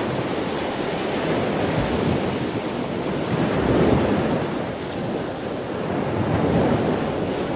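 Steady rushing of water, like surf, swelling a little louder about four seconds in and again later.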